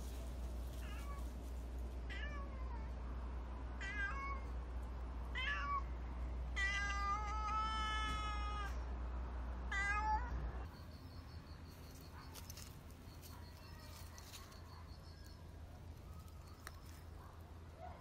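Black stray cat meowing repeatedly, about six calls over ten seconds. The short ones fall in pitch, and one long drawn-out meow of about two seconds comes in the middle.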